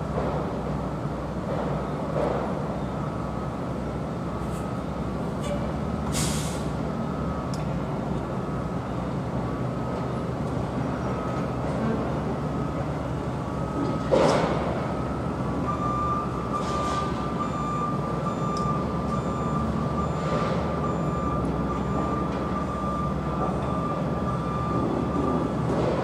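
Construction-site machinery running with a steady low engine rumble, broken by a short hiss about six seconds in and a loud metal clank about fourteen seconds in. From about sixteen seconds on, a steady high whine sits over the rumble until near the end.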